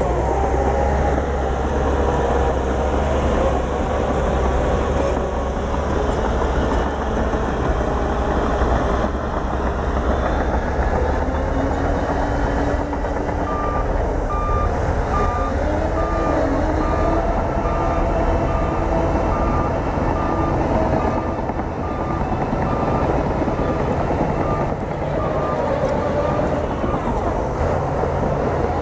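Heavy diesel engine of a bulldozer working, its pitch rising and falling as it is loaded. From about halfway in, a reversing alarm beeps at a steady rate for roughly thirteen seconds.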